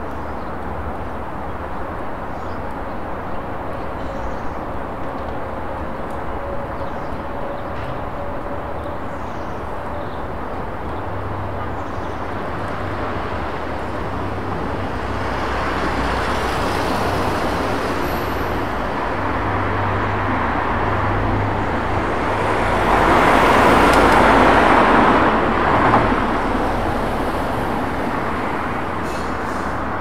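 City road traffic, a steady wash of passing vehicles. It swells as a vehicle passes close and is loudest about three-quarters of the way through.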